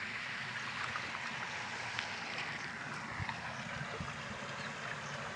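Water rushing steadily through an opened irrigation-tank sluice gate, with a couple of faint low thumps a little past the middle.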